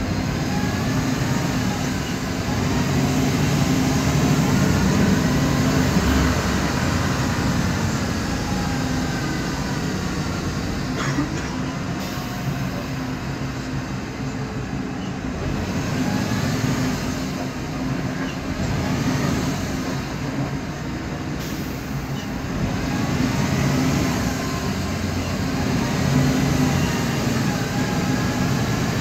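Inside a 2008 MAN Lion's Classic CNG city bus under way: the drive runs with a loud whine that rises and falls in pitch several times as the bus speeds up and slows down, over the engine's steady rumble. The uploader calls it a noisy differential and ties it to the bus's ZF Ecomat drivetrain.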